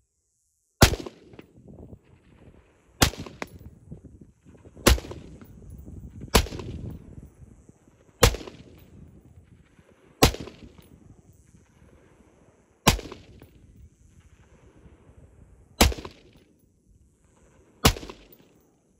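AR-15 semi-automatic rifle fired one shot at a time, nine shots spaced about two to three seconds apart, each sharp crack trailing off in a decaying echo.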